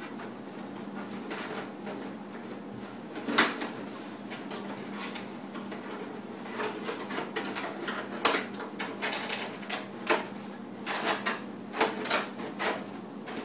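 Empty plastic gallon milk jugs being handled and pushed together, a cut flap being worked into a slot: scattered plastic knocks and clicks, with two louder knocks about three and a half and eight seconds in and quicker clicking near the end.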